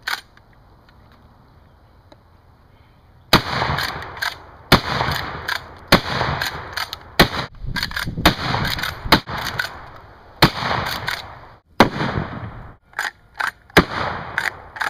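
Norinco Model 87 lever-action 12-gauge shotgun, a replica of the Winchester 1887, fired in a rapid string of shots starting about three seconds in. Each bang is followed by a ringing tail.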